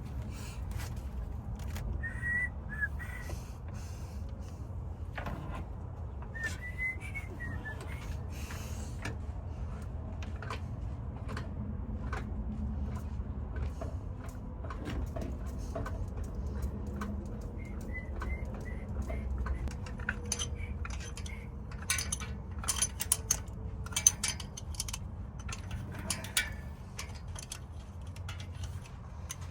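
Light metal clinks and taps of engine parts and tools being handled during the teardown, busiest in the last third. A few short whistled chirps sound over a steady low hum.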